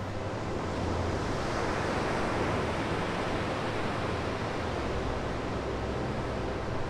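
Sea surf: waves breaking and washing in, a steady, even rush of noise.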